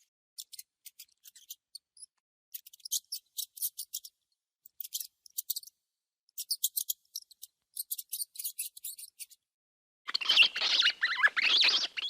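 Mouse squeaking: clusters of rapid, very short, high-pitched chirps, then about ten seconds in a louder, fuller squeal with wavering pitch lasting about two seconds.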